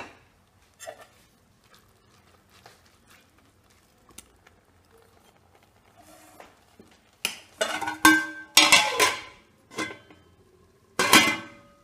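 Aluminium cooking pot and its metal lid being handled: a few light knocks, then a cluster of loud ringing metal clanks from about seven to nine and a half seconds in, and another clank near the end.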